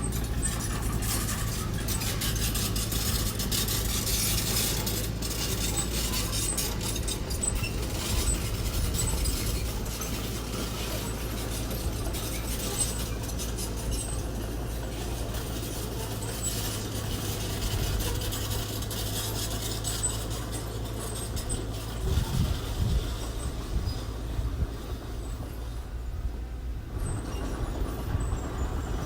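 Engine of small earthmoving machinery running steadily under a low hum, with scattered clicks and knocks.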